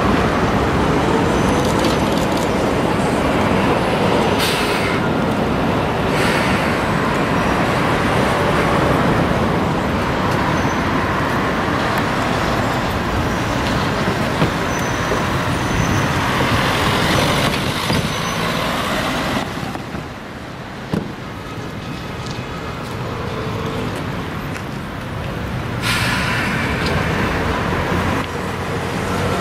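Old articulated tram running slowly round a curve toward the listener over steady city traffic noise. There is one sharp click about two-thirds of the way in, and a short hiss near the end.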